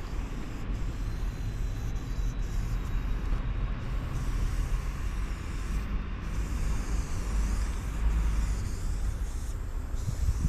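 Aerosol spray-paint can hissing in on-and-off spurts as paint is laid on a concrete wall, with short breaks between strokes. Underneath runs a steady low rumble, the loudest part of the sound.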